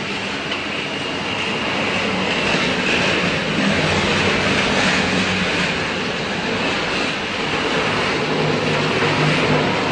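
Puffed-snack production line running: a steady, dense din of electric motors and gear drives, with puffed snacks tumbling in a rotating metal drum.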